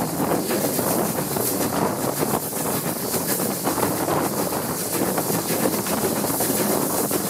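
Steam-hauled passenger train running, heard from an open carriage window, with wind buffeting the microphone throughout.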